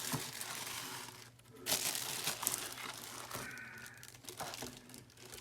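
Packaging crinkling and rustling as the coffee maker is worked out of its box and cardboard packing, with a louder stretch about two seconds in and fainter rustling near the end.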